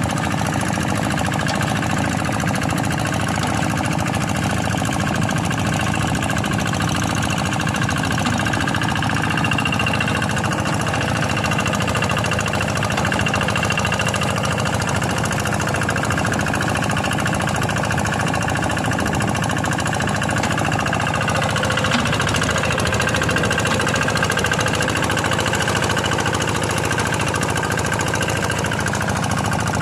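Quick G1000 hand tractor's single-cylinder Kubota diesel engine running steadily, its rapid firing knock even throughout.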